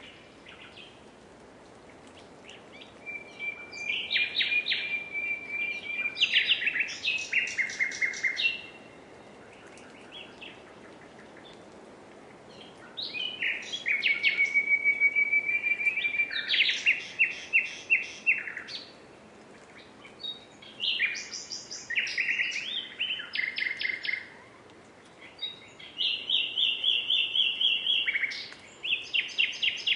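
Common nightingale singing in bouts of a few seconds each. Each bout mixes drawn-out whistled notes with fast rattling trills of repeated notes, and the bouts are separated by short pauses.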